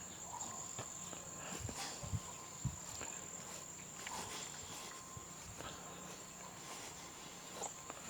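Steady high-pitched chirring of crickets or other insects, with a few soft footsteps on the ground scattered through it.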